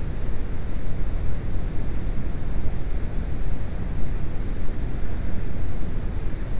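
VW T4 Eurovan's 2.5-litre five-cylinder petrol engine running steadily, heard close up as a constant low rumble.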